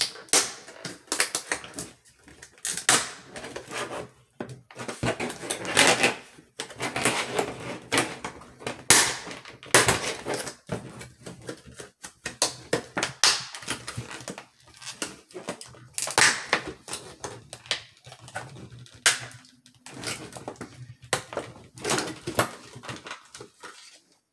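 Clear plastic clamshell blister pack crackling, clicking and rustling as it is pried apart and handled by hand, in a long run of irregular crackles and snaps.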